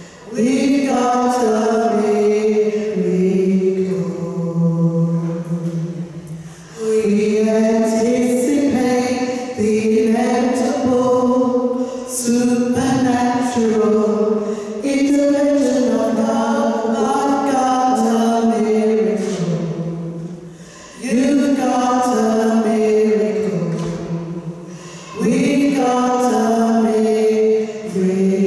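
Two women singing a short gospel chorus through microphones, unaccompanied, in long phrases of held notes with brief breaths between them.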